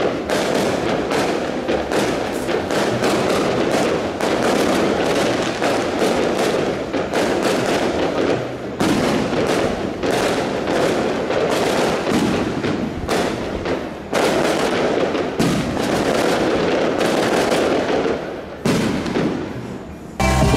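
Aerial fireworks going off: a dense, continuous run of bangs and crackles that stops abruptly just before the end.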